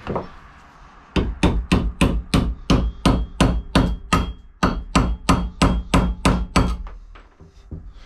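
Claw hammer striking steel in a quick run of about twenty blows, roughly four a second with a brief pause near the middle, each with a short metallic ring. It is driving a rusted pin out of a Boss plow's Smarthitch 2 hitch.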